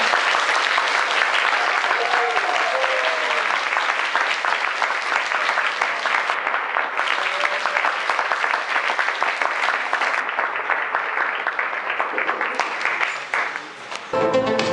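Audience applauding steadily, with a few voices heard through the clapping. The applause dies away near the end and music begins.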